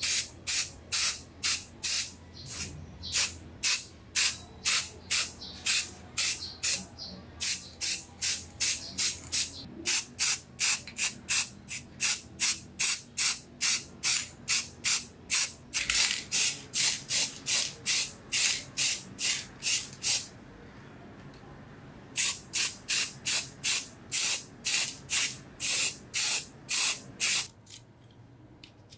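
Hand sanding of a metal part: quick, even back-and-forth strokes with a hissing rasp, about two and a half a second. The strokes pause for a couple of seconds about twenty seconds in, then stop near the end.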